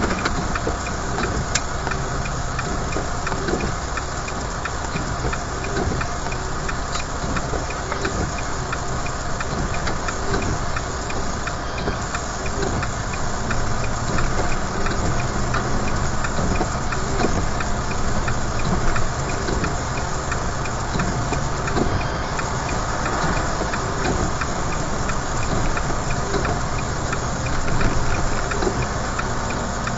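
Vehicle engine running steadily with road noise, heard from inside the cab as it drives along.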